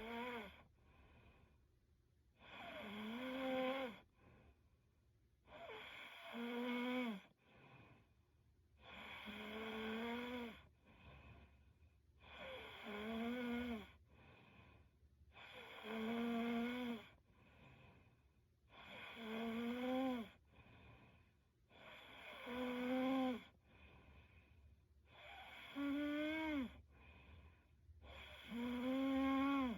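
A young woman snoring in her sleep in a steady rhythm, about one pitched snore every three seconds. Each snore lasts about a second and a half and drops in pitch at its end, with fainter breaths between.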